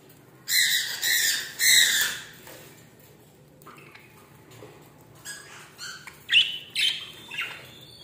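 Budgerigars squawking: three loud, harsh squawks in quick succession in the first two seconds, then softer, shorter chirps and chatter.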